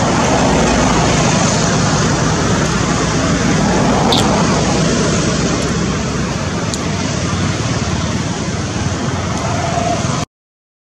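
A steady, loud wash of outdoor background noise, with a couple of brief high chirps around the middle; it cuts off abruptly shortly before the end.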